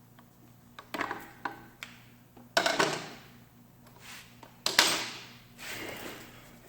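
A series of sharp knocks and clatters, each trailing off in a short scrape or rattle, the loudest about two and a half and five seconds in.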